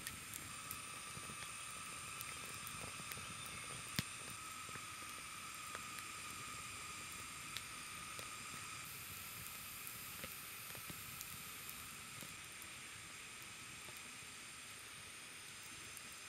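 Small wood campfire crackling faintly, with scattered sharp pops from the burning sticks, over a steady high-pitched hum.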